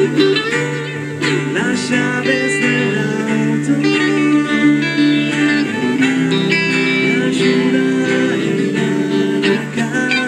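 Small band playing live: an acoustic guitar strummed under a saxophone melody.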